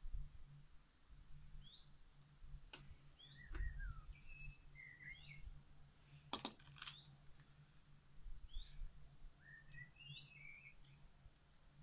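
Faint small birds chirping, short rising calls scattered throughout. A few sharp clicks from hand work on the cable come about three seconds in and twice between six and seven seconds.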